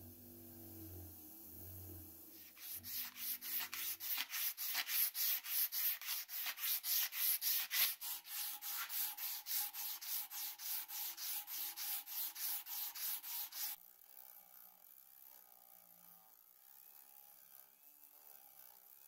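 Abrasive strip pulled back and forth around a rusty steel padlock shackle, a fast even rasping of about four to five strokes a second that stops abruptly about two-thirds of the way through. At the start a bench grinder's motor hum is heard.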